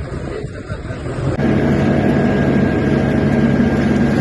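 A vehicle engine running steadily with a low hum, starting abruptly about a second and a half in after a rougher, noisier stretch.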